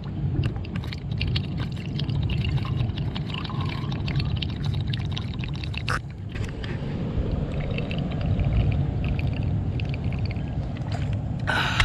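Water poured from a jug into a rooftop unit's PVC condensate drain trap, running steadily into the pipe to prime the trap.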